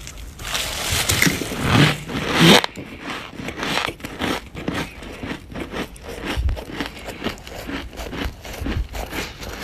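Crunchy humidifier-grown freezer frost being bitten and chewed: a loud, long crunching bite over the first two and a half seconds, then rapid, dense crunching as it is chewed.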